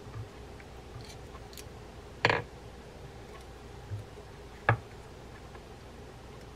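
Small metal clicks and taps of a utility knife blade working small parts into place on a Daiwa Crossfire spinning reel's main gear assembly. There are a few faint ticks and two louder sharp clicks, one a little over two seconds in and one near five seconds.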